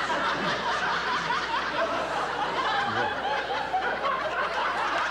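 A crowd of many people laughing together at a flubbed line, sustained and dense without a break.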